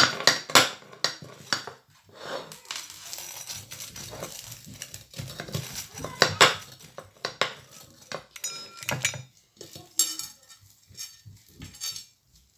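Steel pizza-cutter wheel pressed and rolled through a crisp paratha, scraping and clinking against a ceramic plate in repeated uneven strokes, with a brief metallic ring partway through. It stops shortly before the end.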